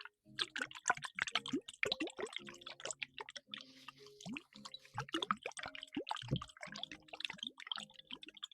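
Close-miked wet ASMR sounds: a rapid, irregular run of small squishy pops, plops and drips. Soft background music with sustained notes plays underneath.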